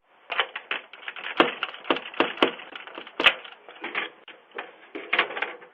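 A string of irregular clicks and knocks, several a second, with the loudest cracks about one and a half and three and a quarter seconds in.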